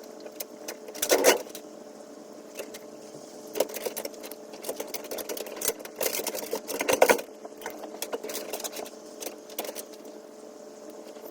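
A steady electric hum of several tones, with irregular clicks and rustles of handling over it, loudest about a second in and again around six to seven seconds in.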